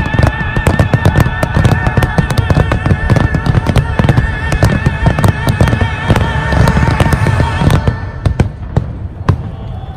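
Dense fireworks barrage: many aerial shells bursting in rapid, overlapping bangs over a deep rumble. The barrage thins out to a few last bangs after about eight seconds.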